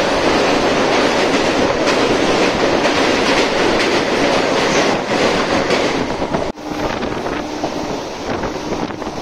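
Electric local train running at speed, a loud steady rumble with the clickety-clack of wheels on rail joints. About six and a half seconds in the noise breaks off for an instant and goes on somewhat quieter.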